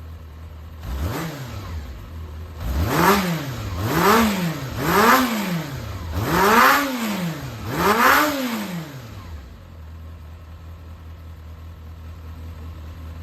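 Yamaha XJR400 air-cooled inline-four engine idling, blipped once lightly about a second in, then revved five times in quick succession, each rev rising and falling back before it settles to idle. The seller describes the engine as free of abnormal noise.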